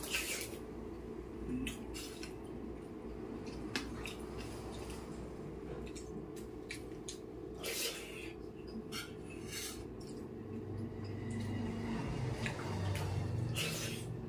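Steel spoon scraping and clinking against a stainless steel plate while a man chews mouthfuls of rice and curry, with scattered sharp clicks over a steady low hum.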